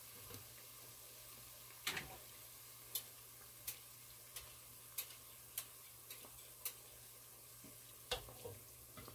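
Batter-coated Oreos deep-frying in hot oil: a faint steady sizzle broken by sharp pops and crackles, roughly one every half second to a second.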